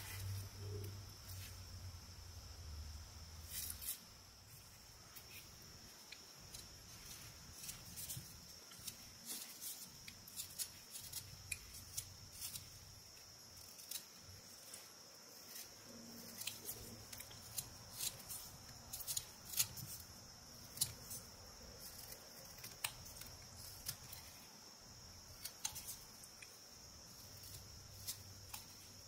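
Whittling knife slicing small cuts into eastern white pine: a string of short, crisp, irregular snicks as the blade bites and chips the wood. A steady faint high-pitched whine sits underneath.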